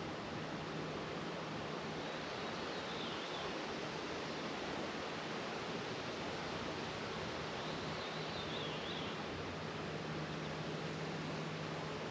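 Honeybees buzzing around an open hive during a frame inspection: a steady low hum under an even outdoor hiss, with two faint high chirps.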